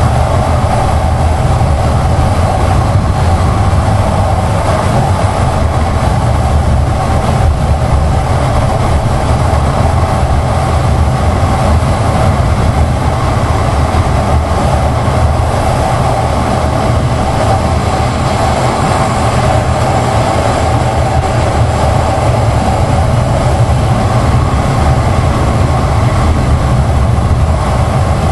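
Kawasaki Ninja 1000SX ridden at a steady cruising speed: its inline-four engine drones under a steady rush of wind on the camera microphone, with no revving or gear changes.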